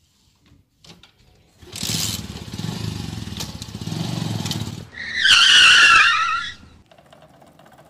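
A small commuter motorcycle engine starts and runs with a throbbing rumble for about three seconds. It is followed by a loud, wavering tyre screech lasting about a second and a half, the sound of a skid.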